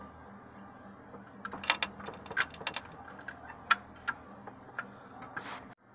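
Sharp metallic clicks and clinks, irregular and in small clusters, from a come-along and chain hooked to a driveshaft yoke, which are pulling under tension to free a seized universal-joint cap.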